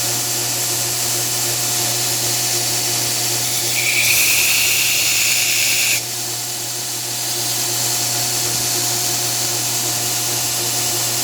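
2x72 belt grinder running with a steady motor hum and belt hiss while the swedge is ground on a hardened knife blade. From about four to six seconds in, a high-pitched grinding whine rises over it as the steel is pressed to the belt, then cuts off suddenly.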